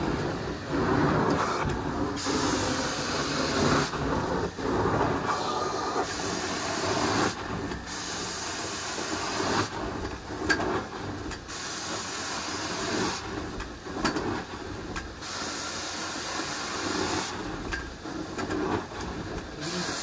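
Hot-water-extraction carpet-cleaning wand hissing as it sprays and sucks water through the carpet in repeated passes. The hiss breaks off briefly every couple of seconds and comes back.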